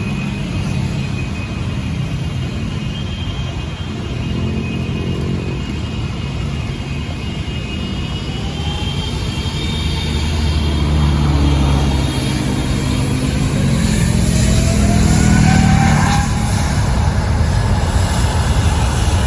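Steady engine and traffic noise that builds to a peak about three-quarters through, with a whine rising in pitch as something passes close.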